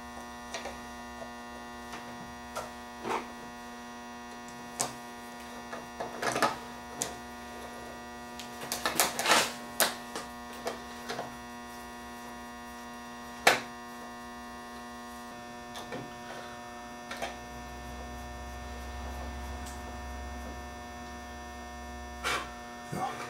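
Scattered clicks and taps of a Teac A3340 reel-to-reel's reel table being fitted back onto its spindle and its screw tightened with a screwdriver, with one sharp click about halfway through. A steady electrical mains hum runs underneath.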